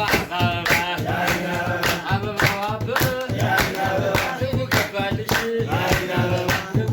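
Voices singing an Amharic song together over a steady hand-clapped beat.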